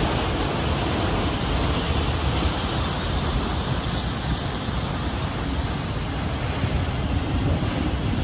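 CN freight train rolling slowly past, a steady, even rolling noise of the train on the rails.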